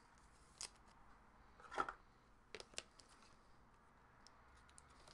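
Quiet desk handling noises while trading cards are handled: a light click, a short scrape or rustle about two seconds in, then two quick clicks and a few faint ticks.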